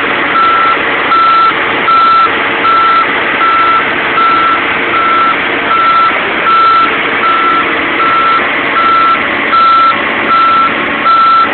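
A heavy plant's reversing alarm beeping, one high tone repeating evenly a little more than once a second, over the steady running of machinery.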